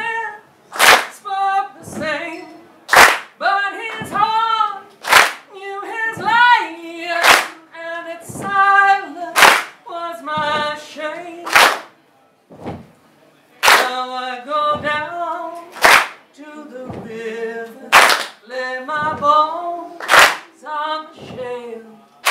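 A woman singing an unaccompanied blues in a gospel chain-gang style, over sharp hand claps keeping a steady beat about once a second, with a heavier clap about every two seconds. There is a brief pause about halfway through.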